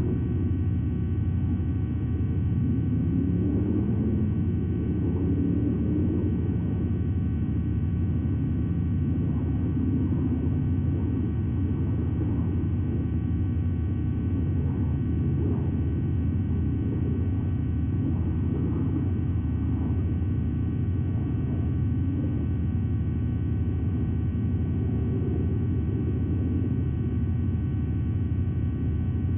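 Steady low rumble of outdoor background noise on the nest camera's narrow-band microphone, with nothing standing out above it.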